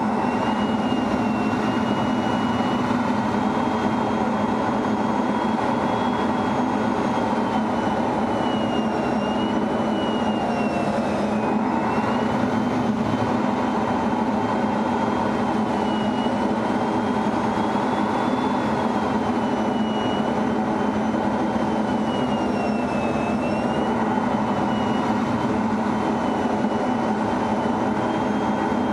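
Steady jet engine and airflow noise heard inside an F-16 fighter's cockpit, with a high whine that slowly wavers up and down in pitch.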